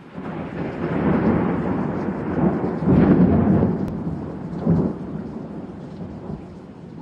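Thunderstorm sound effect: rolling thunder over rain, rising from silence, loudest about three seconds in with a second crack near five seconds, then slowly dying away.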